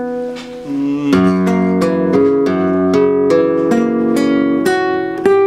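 Nylon-string flamenco guitar playing a picado passage over simple chords: single notes plucked with the fingers in an even run of about three or four a second. The first second is softer, with notes left ringing.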